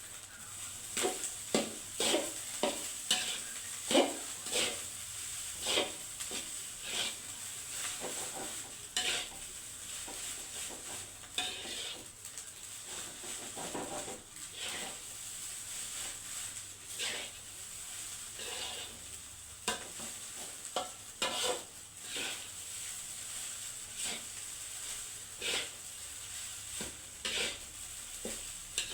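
Rice stir-frying in a pan: a spatula repeatedly scrapes and knocks against the pan over a steady sizzle.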